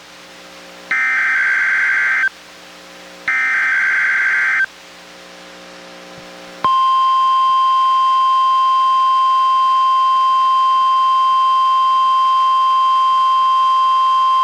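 NOAA Weather Radio test signal: two short, buzzy SAME digital header bursts about a second apart, then, a couple of seconds later, the steady 1050 Hz warning alarm tone, one long unbroken high beep, sounding for the required weekly test of receivers' alarms.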